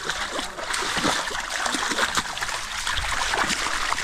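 Water splashing and trickling in a flooded rice paddy: a steady wash of water broken by many small, quick splashes.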